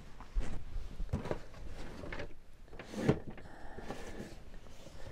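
Boxed toy sets being rummaged through and handled inside a large cardboard box: scattered knocks, scrapes and rustles of cardboard, with the loudest knock about three seconds in.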